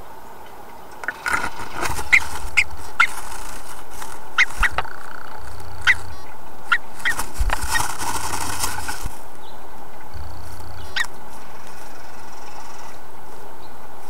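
Bluebird entering a nest box: sharp clicks and scrapes of its feet on the wood and the dry grass of the nest, a flurry of wingbeats about halfway through as it comes down onto the nest, over a steady hiss.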